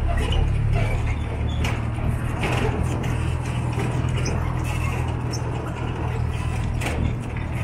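Engine of a resort shuttle road train, a rubber-tyred tractor pulling open carriages, running steadily as it drives along. It gives a low drone with a few knocks and rattles and eases off near the end.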